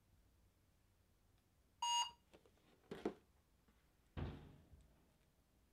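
A single short electronic beep about two seconds in, followed by faint handling noises and a dull thump about four seconds in.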